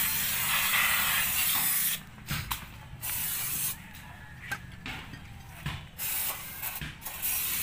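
Aerosol brake cleaner hissing out of a spray can's straw nozzle in bursts: a long spray of about two seconds, a few short spurts, then another long spray near the end. It is being sprayed onto a rear drum brake assembly to clean the brake shoes and backing plate.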